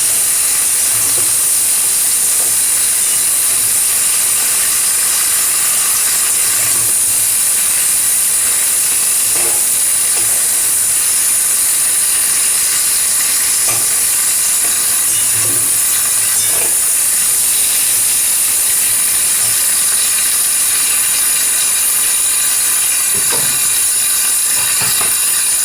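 Mixed vegetables sizzling steadily in hot oil in a pan as they fry, with a few faint knocks from the stirring.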